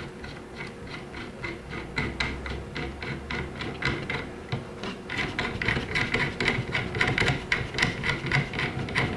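Threaded muzzle brake being unscrewed from an FPK rifle's 14 mm barrel threads, its spring detent clicking over the notches in a quick, even run of clicks that grows louder about halfway through.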